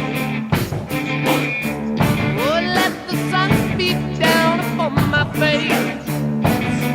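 Rock music with electric guitar over a steady drum beat, with bending lead lines in the middle.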